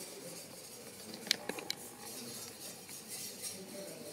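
Katana blade being stroked back and forth on a sharpening stone: quick, faint scraping strokes of steel on stone, with a few sharp metallic clicks about a second and a half in.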